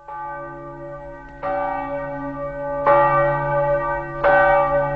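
Church bell tolling, about one stroke every second and a half, four strokes in all, each left ringing into the next.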